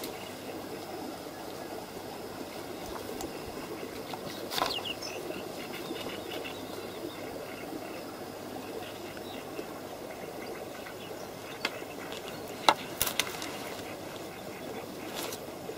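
Outdoor lakeshore ambience: a steady, even rustle with a few short, sharp clicks, the loudest two close together about three quarters of the way through.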